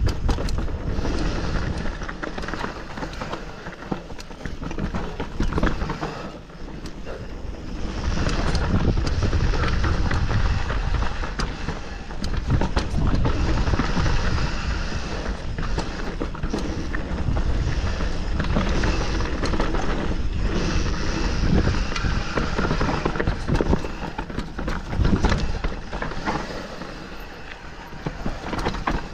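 Mountain bike running fast down a rough trail: tyres rolling over gravel and rock while the bike rattles over bumps, with wind rumbling on the microphone. The noise rises and falls with the speed and roughness of the ground.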